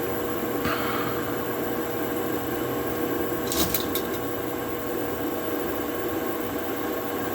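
3D printer running its automatic Z detection with a new CR Touch probe: a steady hum of fans and stepper motors, with a few sharp clicks about three and a half seconds in.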